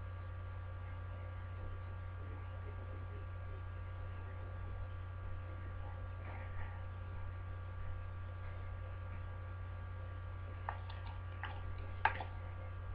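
Steady low electrical hum with faint steady whining tones above it, picked up by a webcam's microphone. Near the end come a few light clicks and knocks as the camera is handled.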